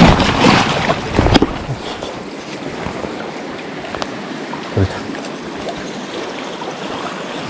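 Mountain stream rushing steadily, running high with snowmelt. In the first second and a half there are loud rumbles and knocks of wind and handling on the microphone.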